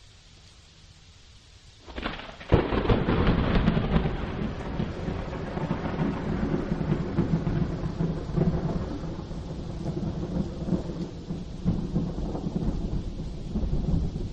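A storm: after a quiet start, thunder swells and breaks in a sharp clap about two and a half seconds in. Rain and low rumbling thunder then carry on steadily.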